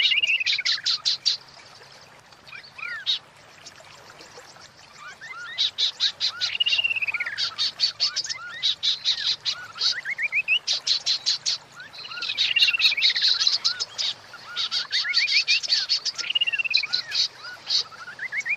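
Female white-rumped shama (murai batu) calling: bouts of fast dry clicks, about ten a second, mixed with short rising and arching whistles, the bouts repeating every few seconds. A call used to bring shamas into breeding condition.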